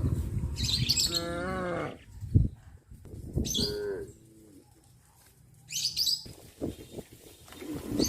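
Cattle mooing as a herd walks, with short bird chirps and one sharp knock about two and a half seconds in.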